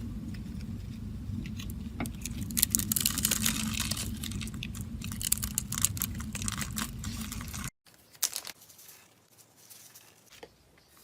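Slime being squeezed and poked by hand: a dense run of crackling clicks and pops over a low hum. It cuts off suddenly about three-quarters of the way in, followed by fainter, scattered clicks.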